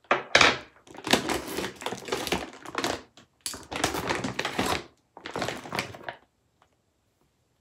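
Plastic mailer bag rustling in several bursts as a hand rummages inside it, stopping about six seconds in.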